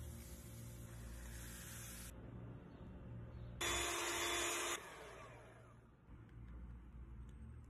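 Powdered whipped-topping mix pouring into a bowl with a hiss for about two seconds. Then an Emjoi electric hand mixer runs for about a second, beating the cream and cream cheese; this is the loudest sound. A low steady hum lies underneath.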